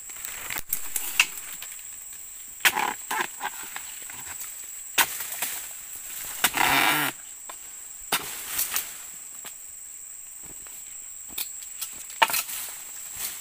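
Dodos (a steel chisel on a long ironwood pole) hacking at the bases of oil palm fronds: a series of sharp chopping hits at uneven intervals, with a longer, louder rasping stroke about halfway through. A steady high insect drone carries underneath.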